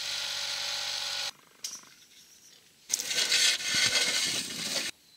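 A small garden tractor engine running steadily, cut off suddenly about a second in. From about three seconds in comes a loud, rough scraping rasp with uneven knocks, lasting about two seconds, as the rusty belt pulley of the dumper's long-idle single-cylinder Petter diesel is turned by hand.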